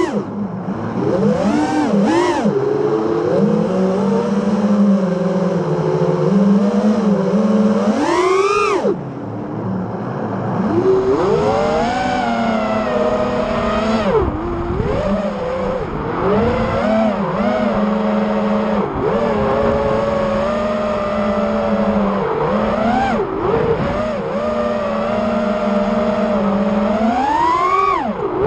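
Electric motors and propellers of a 5-inch FPV racing quadcopter (Underdog 2150kv motors, Ethix props) whining in flight, the pitch rising and falling constantly with the throttle. There are hard throttle punches with a sharply rising whine about 8 seconds in and again near the end.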